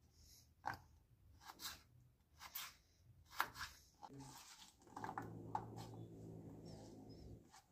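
A knife knocking on a cutting board a few times, about a second apart, then a faint steady hum from about five seconds in.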